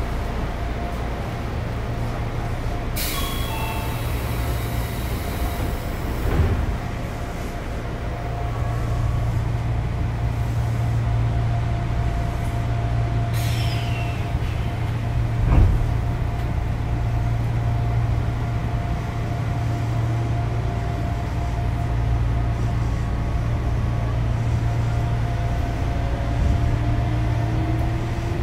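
Odakyu 8000 series chopper-controlled electric train standing at a station with a steady low hum, two bursts of air hiss and two thumps, the louder one about halfway through. From about two-thirds of the way in, a faint rising whine from the traction equipment as the train starts to pull away.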